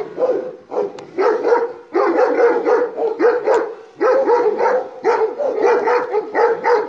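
Kangal (Anatolian shepherd) dog barking at a drone, short hard barks about three a second with brief pauses, an aggressive reaction to the drone above it. A steady hum runs under the barking.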